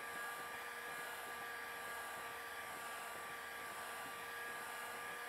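Electric heat gun running steadily, its fan blowing hot air with an even hiss and a faint steady whine.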